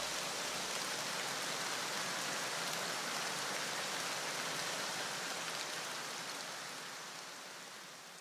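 Steady rushing hiss, like static or rain, that fades away over the last couple of seconds.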